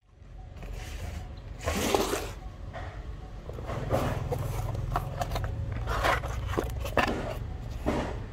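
Cardboard shipping box being opened by hand: the flaps are pulled back and the cardboard scrapes and crackles in about half a dozen short bursts, over a low steady background rumble.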